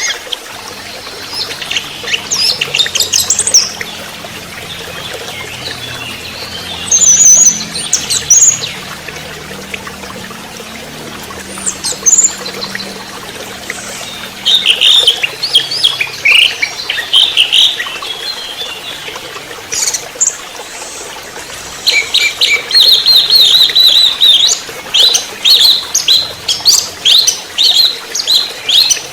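Orange-headed thrush singing: bursts of quick, varied chirping and warbling phrases with short pauses between them, nearly continuous near the end.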